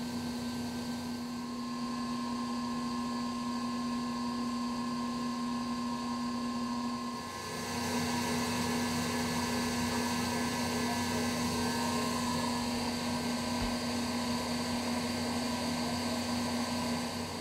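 Stationary electric train's underfloor auxiliary equipment humming steadily, a constant low tone over a hiss. It gets louder about halfway through, heard close to the underframe.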